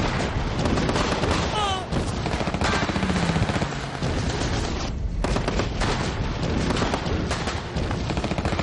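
Battle gunfire: machine-gun bursts and rifle shots overlapping almost without pause, with a brief lull about five seconds in.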